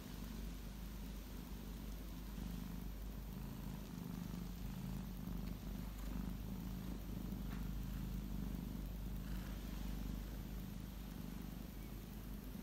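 Domestic cat purring, a low steady rumble.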